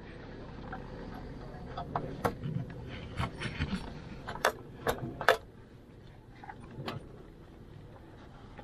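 Handling clicks and knocks as a rubber air-intake hose and its metal hose clamp are worked onto the carburetor inlet of a Unimog 404, with a handful of sharp clacks in the middle.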